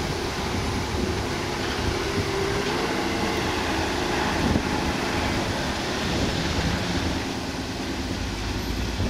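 Diesel engine of a Roman Diesel dump truck running steadily as the loaded truck moves along the track.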